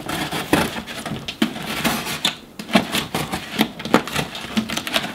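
Box cutter sawing through corrugated cardboard: a quick, irregular run of short scraping strokes.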